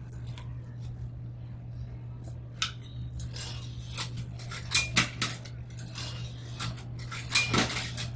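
Coins fed into a Coca-Cola vending machine's coin slot, clinking and rattling through the coin mechanism in three short clusters, over a low steady hum.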